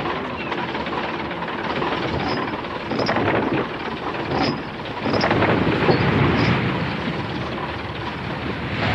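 Diesel engine of a herring fishing boat running at sea, a steady rumbling throb mixed with the wash of water and wind. It swells louder about five seconds in.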